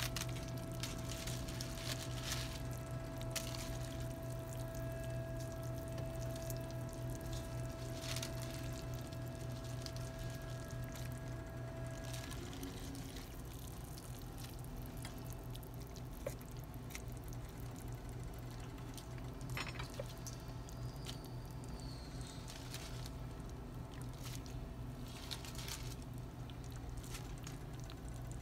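Pork rib soup simmering in a stainless pot: the broth bubbles with scattered small pops and ticks over a steady low hum. A thin higher tone in the background stops about twelve seconds in.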